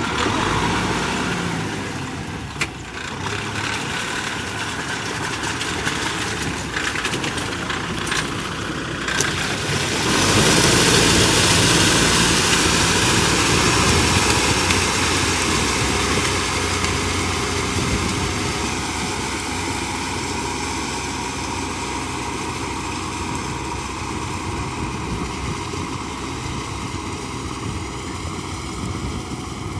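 Kubota M6040SU tractor's four-cylinder diesel engine running under load as it drives a rear rotary tiller through a flooded rice paddy, the blades churning wet mud and water. The sound grows louder about ten seconds in, then slowly fades as the tractor pulls away.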